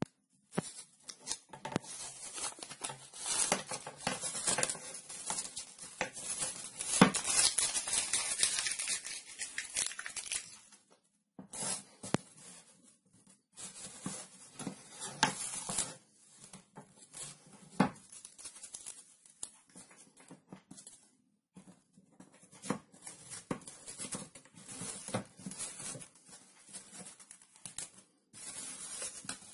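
Glued paper pattern being peeled and torn off a scroll-saw-cut plywood fretwork panel: uneven bursts of ripping and rustling paper with a few short pauses.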